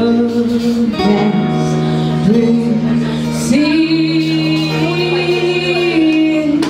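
Live acoustic band: a woman singing long held notes into a microphone over acoustic and electric guitar. These are the song's final notes, and they stop near the end.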